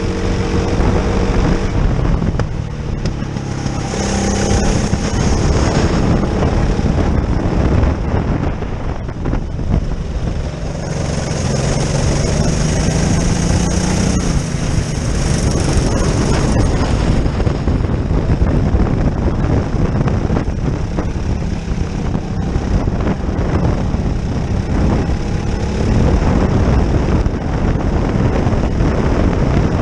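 Go-kart engine at racing speed, heard from on board with heavy wind rush on the microphone; its note climbs through the middle of the stretch and drops back around a corner.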